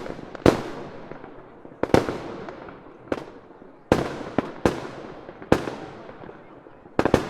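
Fireworks bursting: a string of sharp bangs at uneven intervals, each trailing off in an echo, with several bunched close together near the end.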